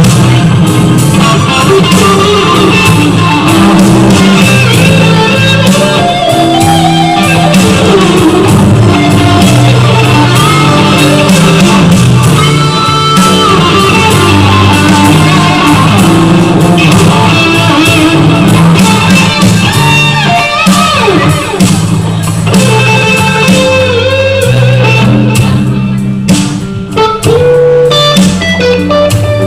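Live blues-rock band jamming: an electric guitar, a Fender Stratocaster, plays lead lines with bent notes over a walking bass line. The audience recording is very loud and rough.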